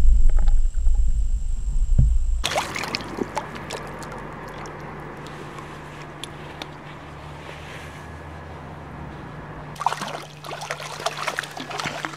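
A low rumble for the first couple of seconds, then river water heard underwater: a steady hiss with scattered ticks and knocks. About ten seconds in comes a flurry of splashing and knocking as a hooked trout is drawn into the shallows.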